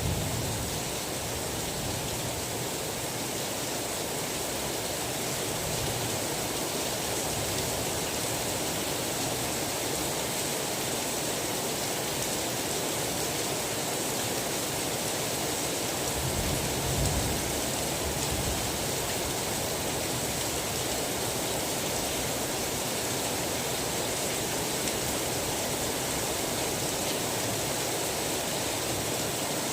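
Steady, even hiss of heavy rain, with a brief low rumble of distant thunder about 17 seconds in.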